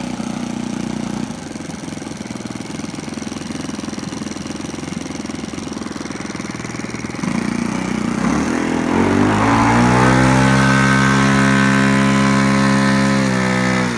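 Saito 1.50 single-cylinder four-stroke glow engine on a radio-control Taylorcraft, idling with its propeller turning. About eight seconds in it revs up to a louder, higher steady run, which holds for about four seconds and then drops back sharply just before the end.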